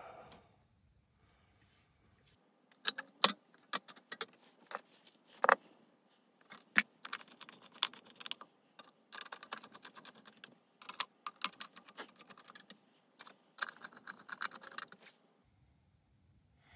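Irregular sharp plastic clicks and rattles as the LED PARcan's plastic lens array and housing are handled and fitted, starting about three seconds in, thickening into rapid clatter in the second half, and stopping about a second before the end.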